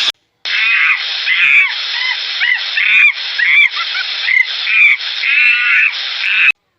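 A series of short, high-pitched animal calls, about a dozen, many falling in pitch, over a steady hiss.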